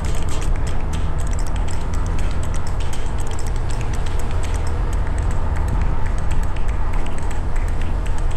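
Motorcycle running steadily while riding, with a heavy low rumble and wind rushing over the microphone.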